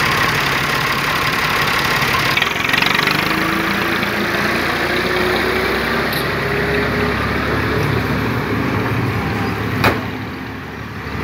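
Massey Ferguson 240 tractor's three-cylinder diesel engine running steadily, its note rising gradually as it pulls a loaded trailer away. A single sharp knock comes near the end, after which the engine sound drops somewhat.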